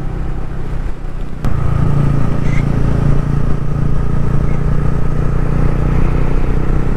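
TVS Ronin 225's single-cylinder engine running under way, heard from the rider's seat with wind noise. A short click about a second and a half in, after which the engine gets steadily louder.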